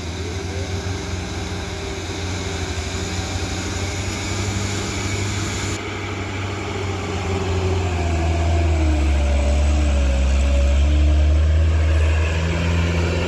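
Light cargo truck's diesel engine running steadily as it climbs the slope, growing louder over the last few seconds as it draws near and passes close by.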